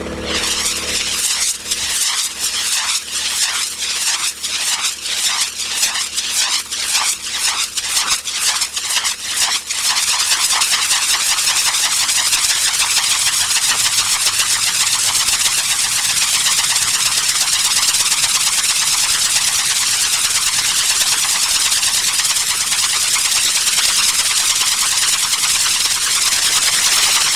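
Backpack helicopter rotor spinning up, in a hissing pulse with each blade pass. The pulses speed up over about ten seconds and merge into a steady loud hiss as the rotor reaches flying speed.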